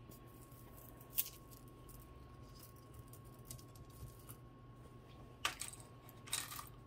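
Quiet room with a few faint clicks and clinks of costume jewelry beads and pieces being rummaged through in a box: one about a second in and a small cluster near the end.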